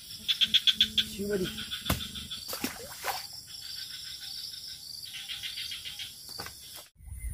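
Insects chirping in rapid trills of about ten pulses a second, loudest near the start and again about five seconds in, with a few sharp clicks. Everything cuts off abruptly just before the end.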